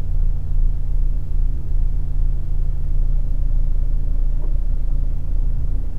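Steady low drone of a moving truck's engine and tyres heard inside the cab, with no change in pace.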